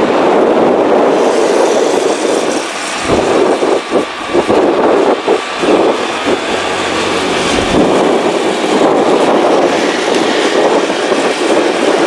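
Distant jet engine noise from a Boeing 737-800's CFM56 turbofans as the airliner comes in to land and touches down, a steady rushing noise with wind gusting on the microphone.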